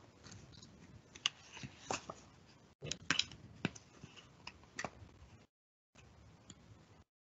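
Faint, scattered small clicks and rustles of handling noise, the sound cutting out to dead silence now and then as the video call's noise suppression gates it.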